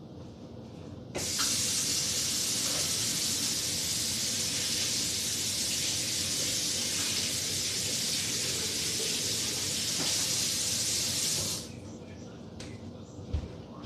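A loud, steady hiss that switches on about a second in and cuts off abruptly about ten seconds later.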